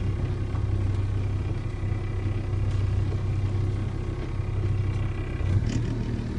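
Boat engine running steadily, heard aboard: a low drone with thin steady tones above it, whose note shifts about five and a half seconds in.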